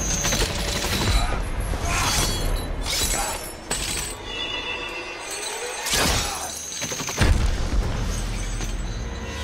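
Film fight soundtrack: a dramatic score under several heavy impacts and crashes, with chains clanking. The biggest hit lands about seven seconds in, after a quieter stretch.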